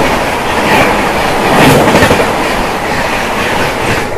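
Two passenger trains crossing at speed on adjacent tracks, heard from one of them: the passing Rajdhani Express's coaches make a loud, steady rush of wheels on rail and moving air.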